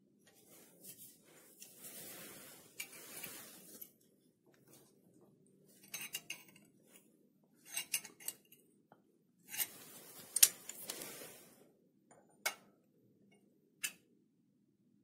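Hands in work gloves handling small steel parts and a steel rule on a lathe's cross slide: rustling and scraping with scattered sharp metal clicks and clinks, the loudest about ten seconds in.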